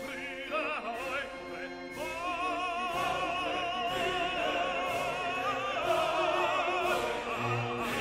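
Background classical music: an operatic voice sings long held notes with vibrato over an orchestra.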